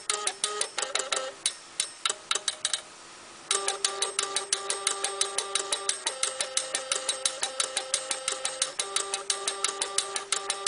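Stepper motors playing a tune: held notes that change pitch every couple of seconds over a fast, even ticking. The music breaks off for about half a second around three seconds in, then carries on.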